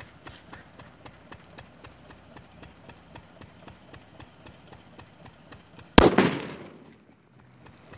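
A firecracker bomb going off underwater in a river: one sharp, loud bang about six seconds in, as a spout of water shoots up, followed by a rush of spray that dies away within about a second.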